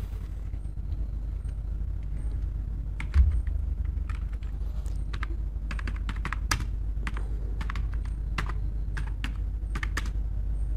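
Computer keyboard typing: short, irregular runs of key clicks, with a low thump about three seconds in, over a steady low hum.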